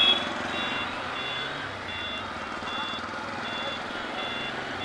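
Electronic beeper sounding short, evenly spaced two-tone beeps, about two a second, over the low running of a motorcycle engine in street traffic.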